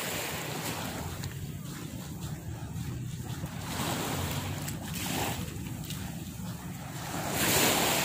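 Small waves washing up on a sandy shore, each wash swelling and fading, the biggest near the end, with wind rumbling on the microphone.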